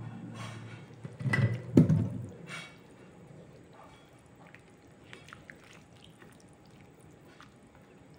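A spoon stirring thickened coconut curry with greens in a pan. A few loud knocks and wet sloshes come a second or two in, then quieter soft squelches and light taps.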